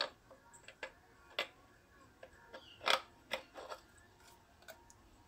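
Faint, irregular metallic clicks and taps, about seven of them, the loudest about three seconds in, as a chainsaw flywheel is slid onto the crankshaft and worked into place.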